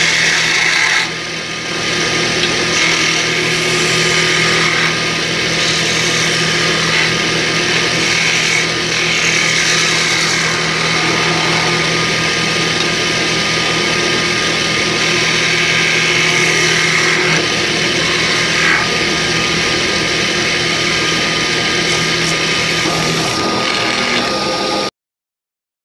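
Wood lathe running with a steady motor hum while a hand-held turning tool cuts the spinning wooden spindle, giving a shifting hiss as the shavings come off. The hum stops near the end, and the sound then cuts off abruptly.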